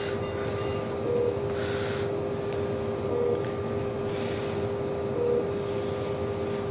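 Steady hum of heart-lung machine equipment with a constant tone, and a short electronic beep repeating about every two seconds.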